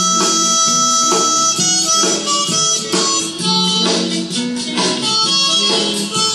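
Background music: a blues-style tune with harmonica playing long held notes over guitar.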